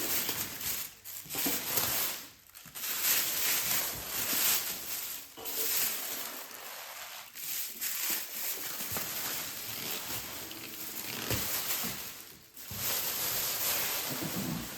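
Plastic wrapping crinkling and rustling as it is handled and pulled off a cooler, in irregular stretches with brief pauses.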